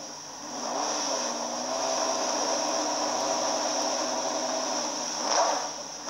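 TVR Cerbera Speed 12's V12 engine revving while the car stands still: it rises about half a second in and holds at a steady raised speed for about four seconds, then gives a sharp throttle blip near the end.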